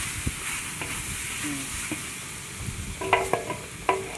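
Food sizzling in a large steel wok while a long wooden paddle stirs and scrapes through it. Near the end the paddle knocks against the wok a few times, and the steel rings briefly after each knock.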